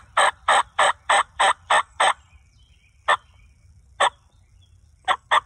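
Turkey call sounding a series of short, evenly spaced turkey notes, about three a second for two seconds, then single notes about a second apart and a quick pair near the end.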